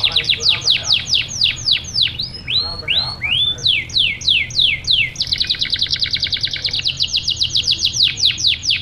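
Domestic canary singing: a run of sharply falling whistled notes, about three or four a second, a few slower curved notes, then from about five seconds in a much faster trill that loosens back into falling notes near the end.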